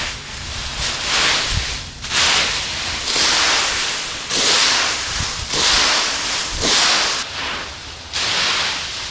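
Dry leaves being raked: repeated swishing strokes, about one a second.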